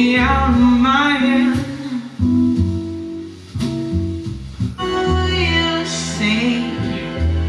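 A song with a singing voice over sustained bass notes, played through a Luxman C-383 preamp and M-383 power amplifier and heard from Canton Ergo RCL floor-standing loudspeakers in the room.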